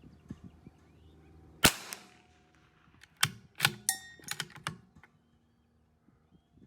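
A single shot from a CZ 457 AT-ONE .22 LR bolt-action rifle about a second and a half in, followed a second or so later by a run of metallic clicks and brief ringing as the bolt is worked to eject the spent case and chamber the next round.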